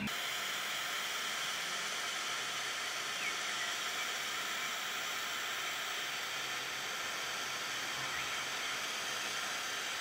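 Jet-flame torch lighter burning with a steady hiss as its flame heats an oil-contaminated disc brake pad to cook the oil out of it.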